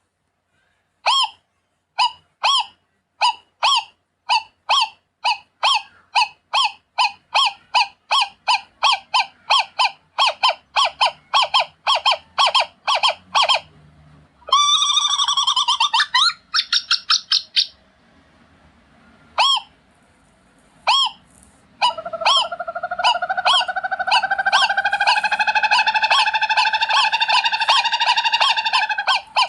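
Owl calling: a series of short pitched calls, about one a second at first and speeding up to about three a second, then a quick run of chattering, gliding notes halfway through. After a few more single calls comes one long drawn-out call that rises slightly in pitch over several seconds.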